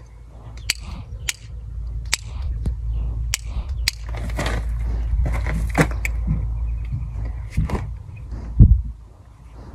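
Sharp clicks and rustling of a leather tack strap being worked with a handheld leather hole punch, over a steady low rumble. There is a louder stretch of rustling in the middle and a heavy thump near the end.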